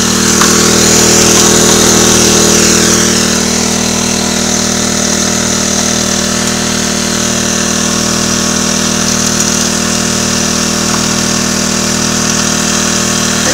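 Small gasoline engine driving the water pump of a gold suction dredge, running steadily at a constant speed, a little louder for the first few seconds.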